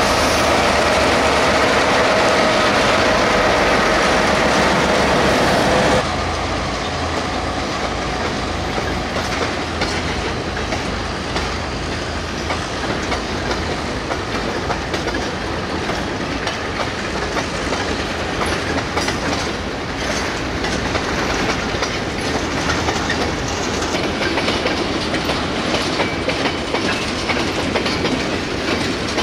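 ALCO RSD16 and GR12 diesel locomotives passing close by with their engines running and a steady whine. About six seconds in, the sound changes abruptly to freight wagons rolling past, with the clickety-clack of wheels over rail joints.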